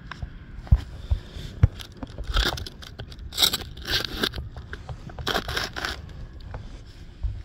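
Irregular rustling and scraping right on the microphone, with a few dull knocks in the first two seconds: handling noise from a camera held against clothing as it moves about.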